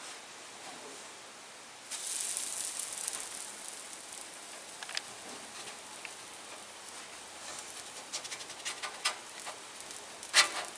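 Buttermilk pancakes sizzling on a hot griddle: a hiss that swells about two seconds in, with scattered light clicks and a short louder clatter near the end.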